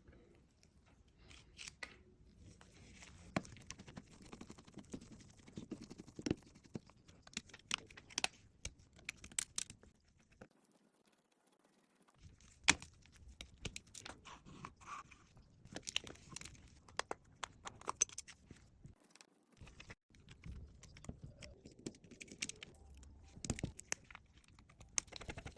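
Small tools and parts of a Samsung Galaxy S20+ being worked on during a screen replacement: scattered clicks, taps and scraping, with two short quiet pauses.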